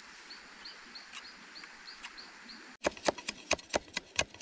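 A small bird chirping faintly, one short call repeated about three times a second. After a sudden break near the end, fast, even knocking starts at about six strikes a second, much louder than the chirps.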